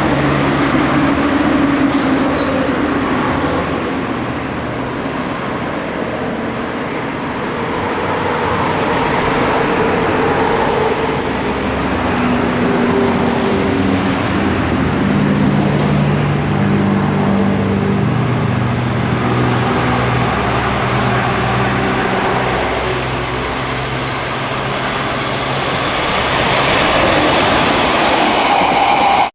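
JNR DD51 diesel-hydraulic locomotive running under power as it approaches hauling a train, its twin V12 diesel engines droning with a note that shifts in pitch partway through. Rail and wheel noise builds near the end as the towed railcars pass close by.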